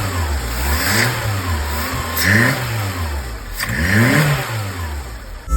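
Seat Arosa's petrol engine, running on freshly refitted cleaned fuel injectors, revved up and falling back to idle several times, about every second and a half.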